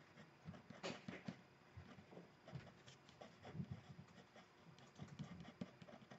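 Faint scratching of a Faber-Castell Polychromos colored pencil on watercolor paper, in many short strokes as fine fur highlights are drawn over dry watercolor.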